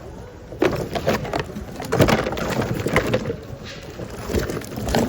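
Hands rummaging through a bin of mixed secondhand goods: irregular clatters, knocks and rustling as hard objects are pushed around and picked up.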